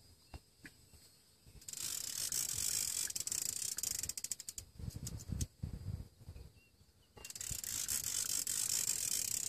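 Fishing reel ratcheting and whirring under a hooked striped bass, in two long stretches of rapid clicking, with a few dull knocks in between.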